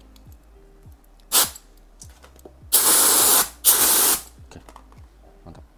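Tekiro air duster gun with a long extension nozzle blowing compressed air at about 50 psi: a short hiss, then two longer blasts about a second long each.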